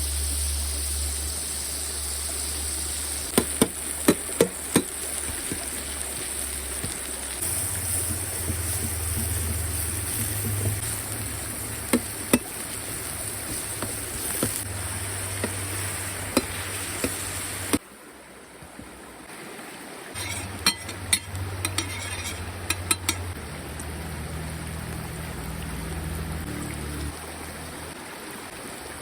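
Scattered clinks and knocks of cooking utensils and cookware, with a quick run of sharp taps a few seconds in and another cluster later, over a steady rushing background like running water. The background drops suddenly about two thirds of the way through.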